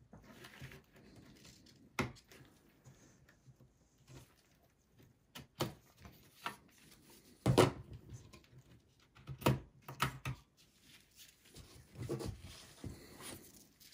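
Sharp plastic-and-metal clicks and knocks as a DDR4 RAM module is unlatched and pulled from its motherboard slot inside a small steel PC case, with light handling noise between them. The loudest click comes a little past halfway.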